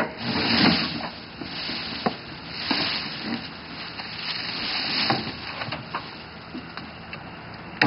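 Grass-thatched pop-up duck blind being lowered: the dry grass covering rustles and swishes in several swells, with a few sharp clicks and knocks from the blind frame and the boat.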